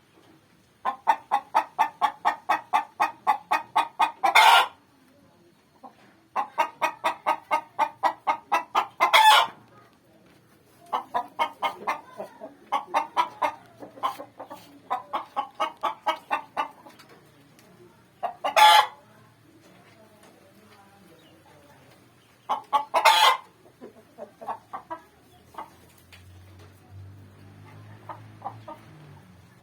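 A hen cackling: runs of rapid clucks, about four a second, several of them ending in a loud drawn-out squawk. The call is the sign of a hen about to lay an egg.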